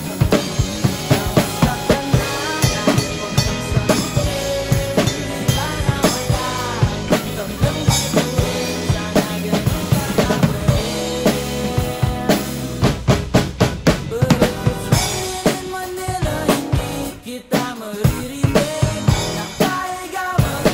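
Acoustic drum kit played live, with kick drum, snare and cymbals in a steady groove, along with a recording of a pop song with singing. The playing drops out briefly about 17 seconds in, then the drums come back in.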